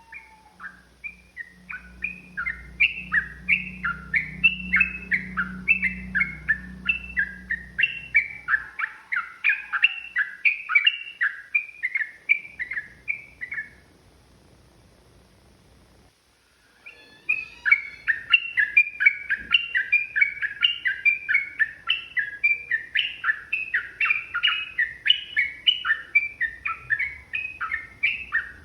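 Yellow-vented bulbul (trucukan) singing long, rapid runs of chirpy notes, about four a second, pausing for about three seconds midway before starting again. A low hum lies under the first run.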